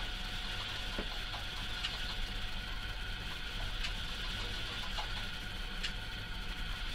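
Kity bandsaw's upper wheel turned slowly by hand, the narrow blade running over the wheels with a few faint ticks, while the blade is tracked just over the edge of the wheels. A steady low hum runs underneath.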